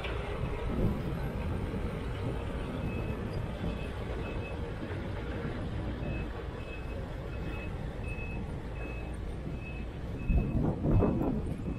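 Diesel engines of a crawler excavator and a crawler loader running steadily, with a reversing alarm beeping about twice a second from about three seconds in. Near the end comes a louder rumbling clatter.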